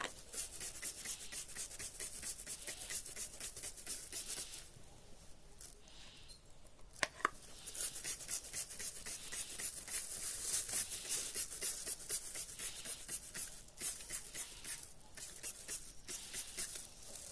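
Quick, repeated rasping strokes of a plastic-bag-covered hand scrubbing foamy degreaser over the metal fins of a range hood's squirrel-cage blower wheel. The strokes pause for a couple of seconds partway through, with a single click, then carry on.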